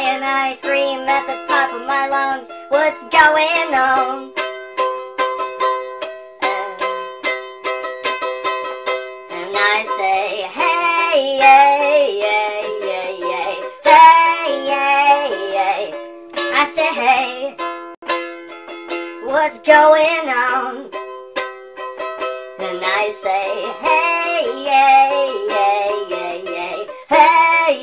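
Nightcore edit of a song: a man's singing, sped up and pitched up, in phrases over a strummed stringed instrument that carries on between the vocal lines.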